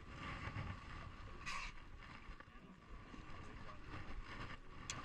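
Fishing charter boat at sea: steady low rumble of its motor with wind on the microphone, a short hiss about a second and a half in and a sharp click near the end.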